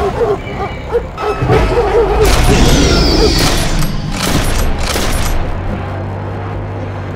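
Action soundtrack music with heavy booming hits and a falling whoosh, settling into a steady low drone near the end.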